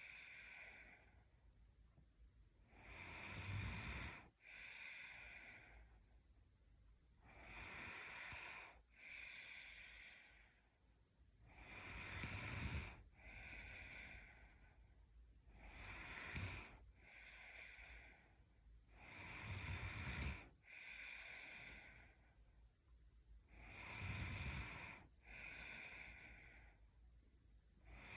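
A woman snoring in her sleep: a slow, regular rhythm of about seven breaths, one every four seconds or so, each a low rasping snore followed by a second, softer breath sound.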